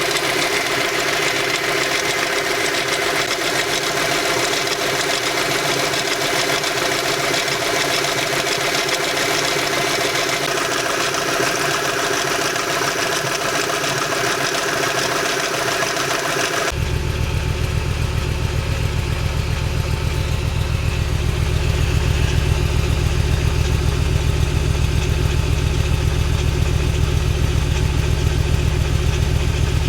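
Volkswagen Bora V5's 2.3-litre narrow-angle five-cylinder engine idling steadily, with a mechanical noise that the owner suspects comes from a defective timing chain. About halfway through, the sound changes abruptly to a deep, low drone with much less treble.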